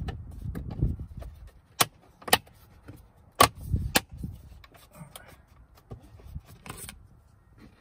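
A plastic cup holder trim panel being pressed by hand into a Mercedes GLK center console: several sharp plastic clicks as its tabs snap into place, the loudest about three and a half seconds in, with dull thumps and rubbing from the hands on the console.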